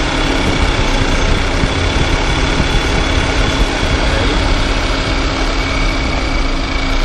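Volkswagen Tiguan engine running in drive, with a rapid, uneven knocking rattle ("batendo") that sounds as if it comes from inside the engine. It comes from a broken tensioner on the Poly-V accessory belt, whose parts have come apart.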